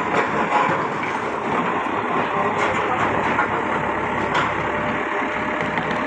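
Bulldozer's diesel engine running steadily, with a few faint knocks.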